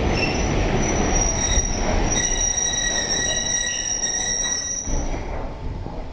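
A train running on the rails with a rumble, and a high, steady squeal from the wheels that sets in about a second in and stops about five seconds in. The rumble fades near the end.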